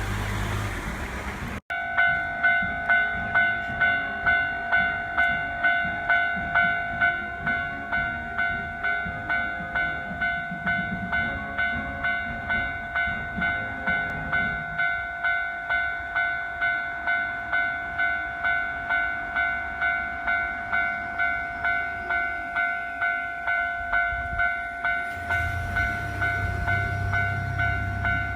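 Japanese railway level-crossing alarm ringing its electronic bell over and over, about one and a half strikes a second. A train rumbles past partway through and another comes in near the end. A moment of road traffic noise cuts off abruptly just before the bell starts.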